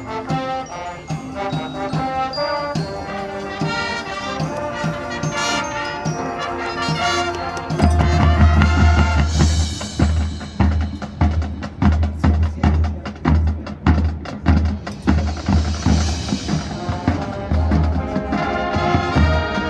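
High school marching band playing brass chords. About eight seconds in, the bass drums and percussion take over with a heavy pounding rhythm and two bright crashes, and the brass comes back in strongly near the end.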